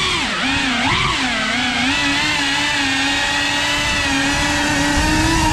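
Cinewhoop FPV drone's motors and ducted propellers whining. The pitch rises and falls with the throttle during the first second or so, then holds nearly steady.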